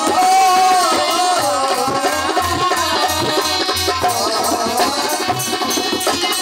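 Live ragni folk music: a wavering, bending melody line over a regular dholak-style drum beat.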